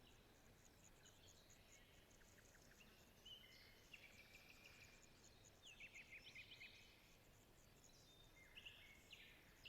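Faint forest ambience: scattered songbird chirps and short trills, busiest around the middle, over a faint, rapid, even ticking high in pitch.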